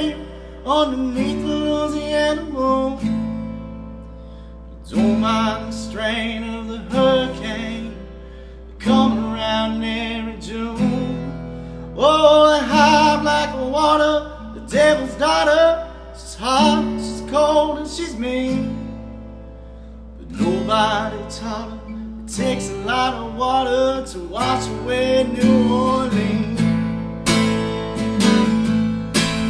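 Acoustic guitar strummed and picked in chord strokes, phrase by phrase, with short lulls between phrases.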